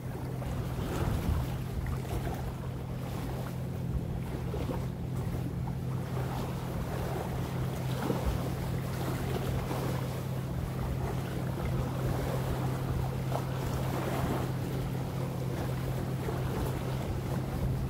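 Small lake waves lapping at the shore, with wind on the microphone, under a steady low engine hum.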